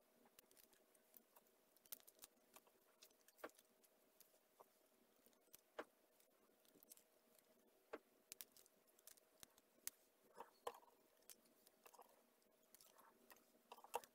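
Faint, irregular soft clicks and wet squelches of gloved fingers opening anchovies and pulling out their guts, over a faint steady hum.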